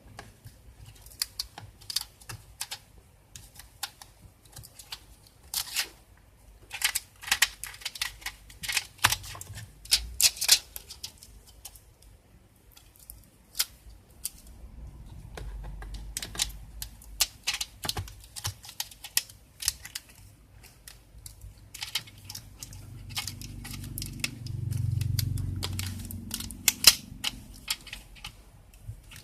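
Irregular sharp clicks and taps of a laptop's plastic casing and parts being handled and pried apart during disassembly, with a few dull low bumps.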